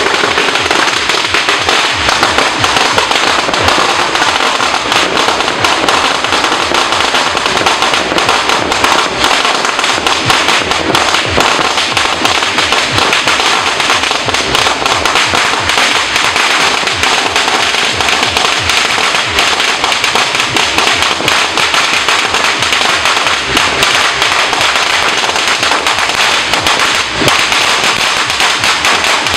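Firecrackers going off in a dense, unbroken crackle of many small rapid bangs running together, loud and steady throughout.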